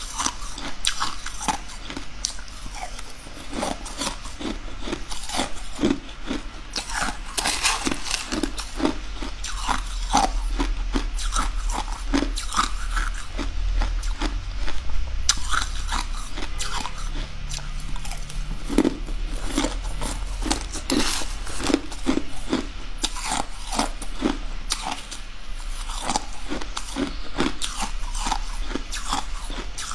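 Close-up crunching and chewing of mouthfuls of coloured crushed ice, a dense run of irregular crisp crunches, several a second.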